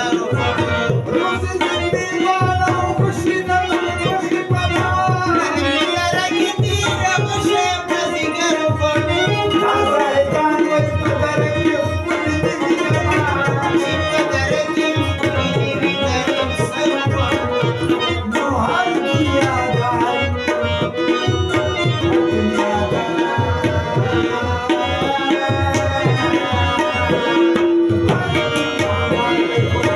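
Live Pashto ghazal music: tabla played in a quick, steady rhythm under harmonium and rubab, with a voice singing the melody.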